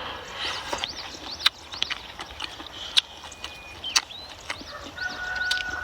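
Close-up eating sounds: chewing and mouth smacks with scattered sharp clicks.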